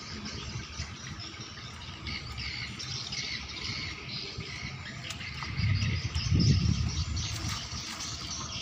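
Water sloshing and splashing as a net fish trap is hauled up out of a river, with one louder low surge about six seconds in. Birds chirp throughout.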